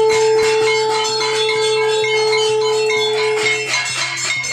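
A conch shell (shankh) blown in one long, steady note that stops about three and a half seconds in, over the fast, continuous clanging of steel plates (thalis) beaten with spoons.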